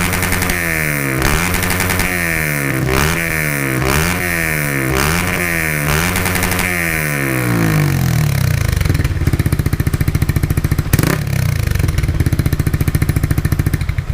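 Yamaha R15 V3's single-cylinder engine breathing through an aftermarket exhaust, blipped by hand about six times in quick succession, each rev rising and falling back, then settling to a lumpy, pulsing idle about eight seconds in.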